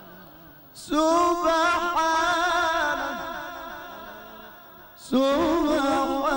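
A man chanting the Quran in a long, ornamented melodic style through a PA system, with strong reverberation. One phrase comes in loudly about a second in, fades away with its echo, and a second phrase comes in near the end.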